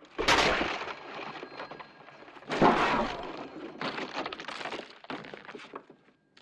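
Two loud smashing crashes, about two and a half seconds apart, each followed by a rattle of smaller knocks and clatter of breaking, falling debris.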